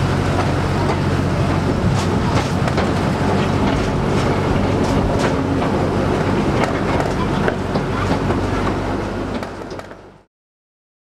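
Narrow-gauge 600 mm train running, heard from an open carriage: steady rumble of the wheels with repeated sharp clicks and clatter over the track. The sound fades out near the end.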